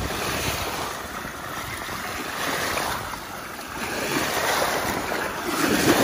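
Small sea waves washing in over a shallow shell-sand shoreline, the wash swelling and easing, with a wave breaking and splashing near the end. Wind buffets the microphone throughout.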